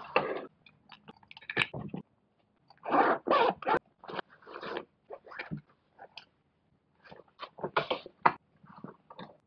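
Stiff ripstop sailcloth sling bag being handled and turned over, crinkling and rustling in short irregular bursts, with its main zipper pulled open.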